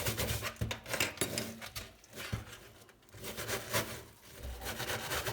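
Brush scrubbing small metal bolts to clear vinegar-loosened rust: quick scratching strokes, easing off twice before picking up again.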